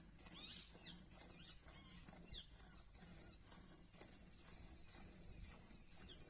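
Cow being milked by hand: faint rhythmic squirts of milk, about two a second, with a few sharp high chirps over the top.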